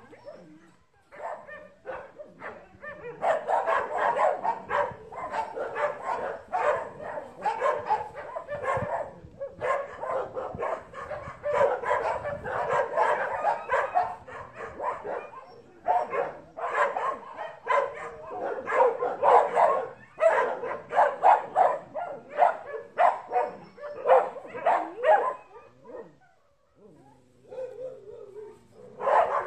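Dog barking rapidly in long runs of quick barks with short pauses, breaking off briefly near the end.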